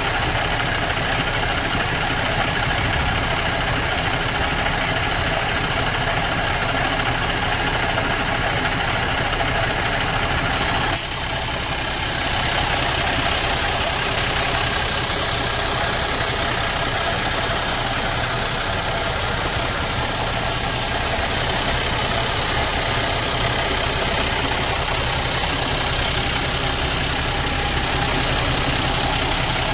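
Cummins ISX 600 inline-six diesel in a Western Star 4900SA idling steadily, heard close up at the open engine bay.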